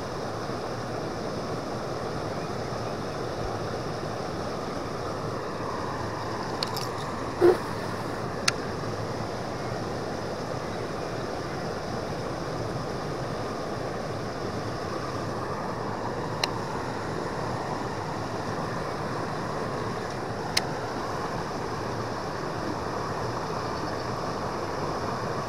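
Steady rush of river water pouring over a small weir. A few sharp clicks from a baitcasting reel cut through it, the loudest about seven seconds in.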